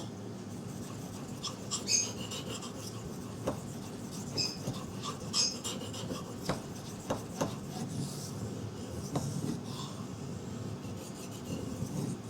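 A 3V steel knife blade being stroked back and forth across a wet water stone: a steady scraping with scattered light clicks and a few short high squeaks, while the edge is polished at a slightly higher angle.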